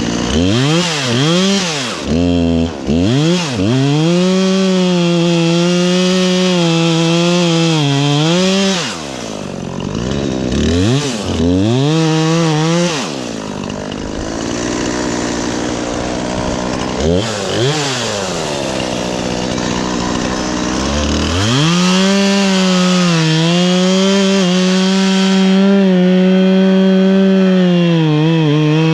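Two-stroke gas chainsaw revving in several quick throttle blips, then held at full throttle cutting wood for a few seconds, dropping back to a lower speed with more blips around the middle, and opening up again to run at full throttle through the last seven seconds.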